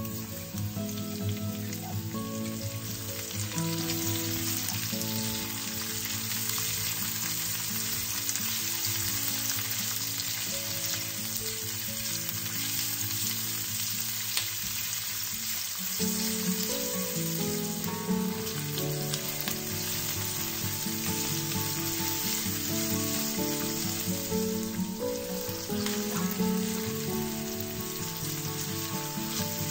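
Sliced onion, garlic and ginger sizzling in hot oil in a stainless steel frying pan, stirred and scraped with a metal spatula, with background music underneath.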